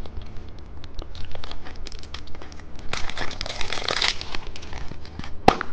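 Candy packaging crinkling and tearing as it is opened by hand, with scattered small crackles, a denser burst of crinkling about three seconds in and a sharp click near the end.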